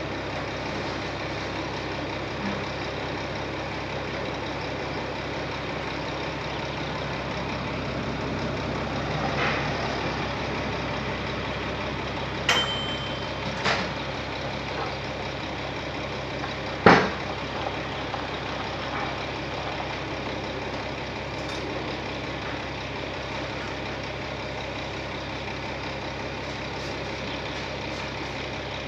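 A heavy diesel engine idling steadily, the low hum of a parked tipper truck's engine. About halfway through come a few sharp knocks, one with a brief metallic ring.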